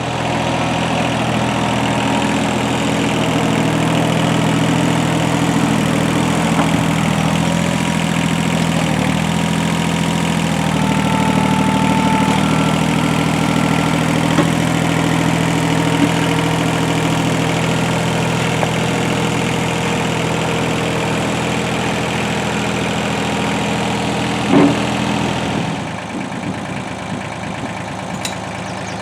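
Tractor engine running steadily. There is a brief knock near the end, and just after it the engine drops to a quieter, lower note.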